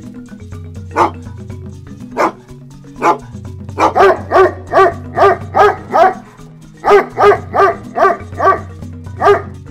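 A dog barking: three single barks about a second apart, then two fast runs of barks at about three a second, and one more bark near the end. Background music with a low bass line plays underneath.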